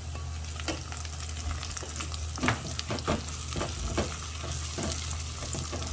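Spice blend, garlic and pepper paste sizzling in olive oil in a non-stick aluminium pot, stirred with a spoon that clicks and scrapes irregularly against the pot, over a steady low hum.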